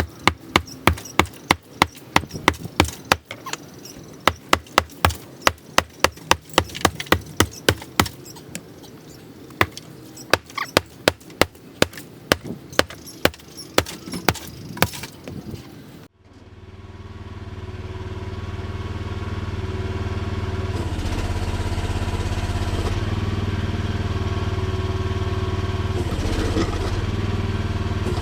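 A quick run of sharp sledgehammer blows on concrete slabs, about two or three a second. It cuts off suddenly about sixteen seconds in, and the small engine of a mini excavator comes in and runs steadily, growing louder and then holding.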